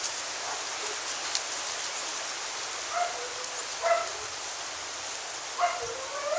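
A small dog barking: four short, high yaps in the second half, over a steady hiss of wind on the microphone.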